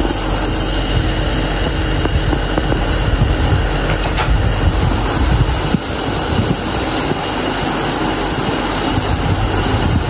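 Electric nebulizer compressor running with a steady mechanical drone, pushing medicine mist into a child's face mask.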